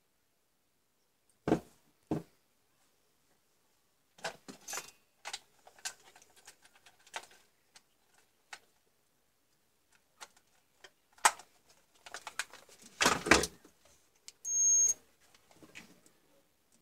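Small motor parts and tools being handled on a workbench: scattered clicks and knocks with a few louder thumps. Near the end comes a short high beep from a digital multimeter's continuity tester as its probes touch the Dremel's motor field coil, signalling a closed circuit.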